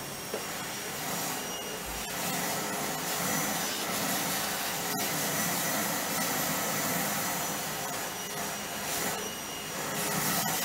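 Vacuum cleaner running steadily, its hose nozzle working over the kitchen floor: a continuous rushing hum with a faint steady whine, a little louder from about a second in.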